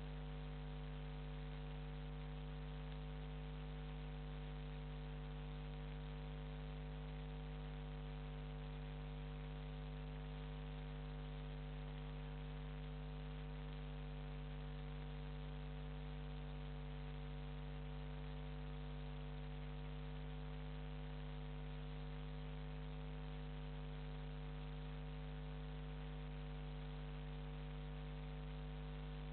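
Steady electrical mains hum with a buzz and hiss, unchanging throughout; the passing narrowboat is not heard.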